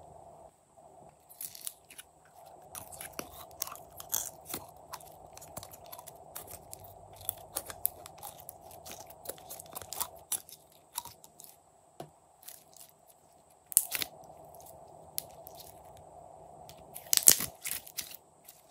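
Yellow slime being pulled out of a plastic skull-shaped container and stretched and squeezed by hand, making irregular sticky clicks and crackles. A loud cluster of pops comes near the end.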